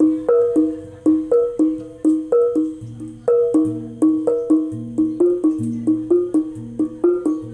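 Set of kenong, small knobbed gongs in a wooden frame, struck with padded mallets in a fast interlocking jaranan-style pattern. It runs at about four strikes a second on two or three alternating pitches, each ringing briefly, with a deeper tone sounding every second or so.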